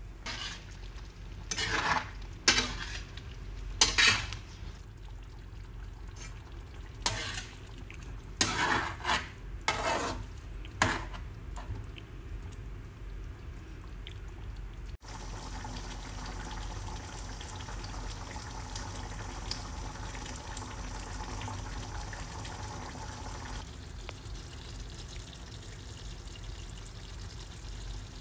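Pot of chicken curry simmering on the stove: the thick sauce bubbling and sizzling. Several brief louder bursts come in the first half, and after a cut about halfway the simmer is steady.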